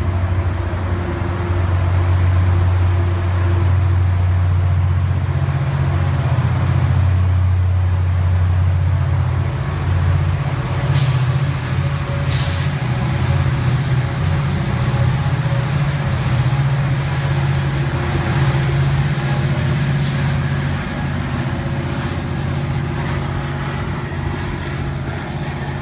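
Diesel-hauled Caltrain commuter train pulling out: a steady low engine drone that steps up in pitch about ten seconds in, with two short, sharp air-brake hisses just after.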